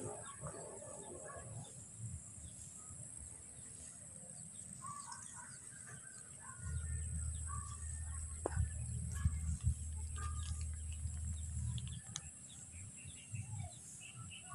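A goat's call in the first second or so, then scattered short chirps of small birds. A low rumble, most likely wind on the microphone, comes in around the middle and fades near the end.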